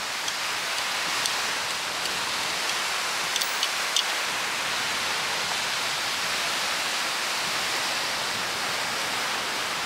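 Steady hiss of small waves washing onto a sandy beach, with a few faint ticks in the first four seconds.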